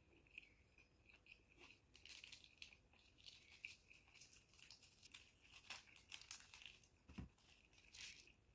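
Faint crinkling and tearing of a thin paper wrapper being peeled off a piece of milk Mysore pak, in quick irregular crackles, with a soft low thud a little after seven seconds in.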